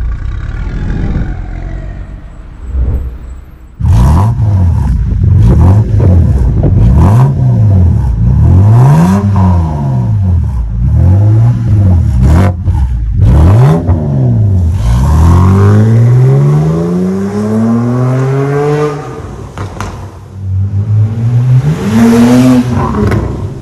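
BMW E92 coupe's tuned exhaust, the stock system split into dual outlets with Akrapovic tips, as the engine is revved. After a few seconds of low running come a string of quick throttle blips, then a longer rev that climbs and drops, and one more blip near the end.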